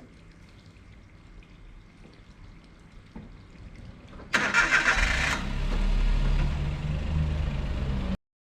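A vehicle engine starts about four seconds in and settles into a steady idle, then cuts off suddenly near the end.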